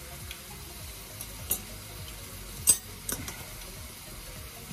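Pecorino grated on a flat steel hand grater over a glass bowl: a soft, even rasping scrape, with a few light clicks, the loudest about two and a half seconds in.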